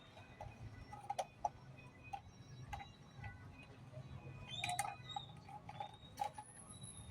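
Irregular light clicks and taps, a few to a second, as the parts of a newly unboxed item are handled and fitted together.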